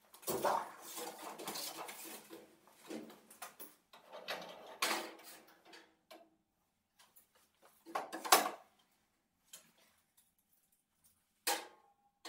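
Sheet-metal workshop clatter: a few seconds of rattling and scraping metal, then separate metallic knocks, the loudest about eight seconds in, and a short clang that rings briefly near the end.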